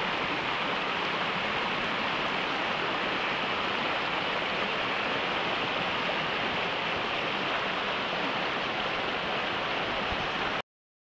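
Shallow stream rushing over rocks in a riffle, a steady water sound that cuts off suddenly near the end.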